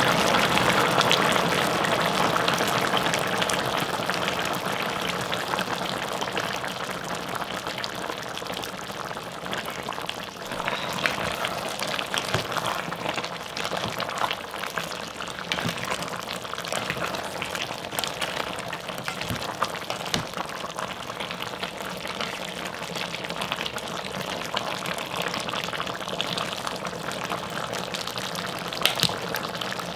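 Soy-braised chicken stew bubbling at a boil in a pot, a steady crackle of popping bubbles, a little louder in the first few seconds. A few sharper clicks stand out, once near the middle and once near the end.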